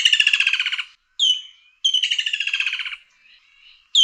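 Woodland kingfisher calling: a sharp single note followed by a rapid trill of about a second that falls slightly in pitch, the phrase given twice.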